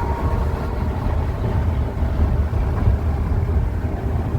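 Steady low road and engine rumble of a moving vehicle on the highway.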